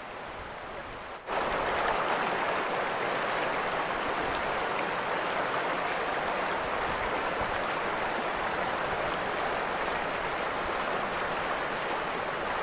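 Shallow river rushing over stones in rapids: a steady rush of water that gets suddenly louder about a second in and holds there.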